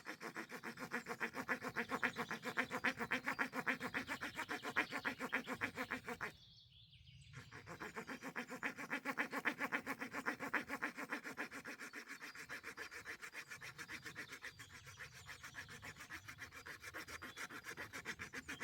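Small folding saw blade of a Victorinox Swiss Army knife sawing through a resinous branch by hand, fast even strokes at about four to five a second. There is a pause of about a second near the middle before the sawing resumes.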